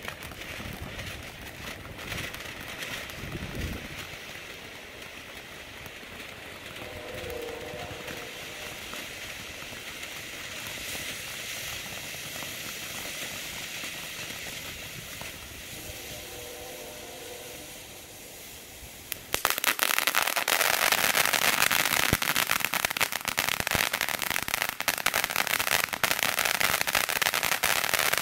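TNT Short Stack firework fountain spraying sparks with a steady hiss, then about two-thirds of the way through turning suddenly much louder with dense crackling that carries on.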